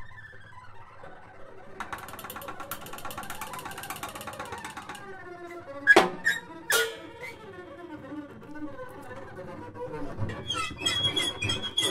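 Free-improvised jazz from alto saxophone, bowed double bass and drums, played as sparse textures of scrapes, squeaks and gliding tones rather than a steady beat. Two sharp hits come about six seconds in and are the loudest sounds. From about ten and a half seconds a high steady squeal sets in over busier percussion.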